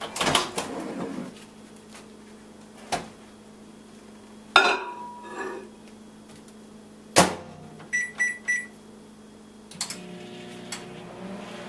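Microwave oven being loaded and started: a paper towel rustles and a bowl slides at the start, the door clicks open, and it shuts with a sharp latch click. Four short keypad beeps follow, and then the oven starts with a steady low hum.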